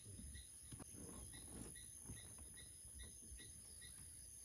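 Near silence: faint rainforest ambience, a steady high insect drone with a short chirp repeating about three times a second.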